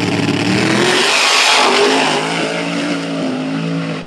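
Drag car engine accelerating hard, its pitch climbing in steps through gear changes, with a loud rush of noise about a second and a half in. The sound cuts off suddenly at the end.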